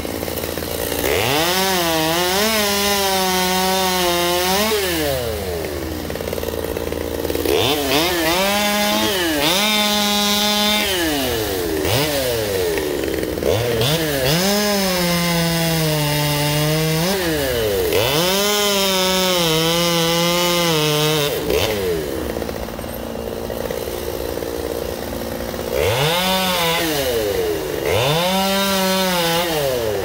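Gasoline chainsaw cutting tree limbs. The engine revs up into a cut and sags a little in pitch under load, then drops back to idle, about seven times, each cut lasting one to four seconds.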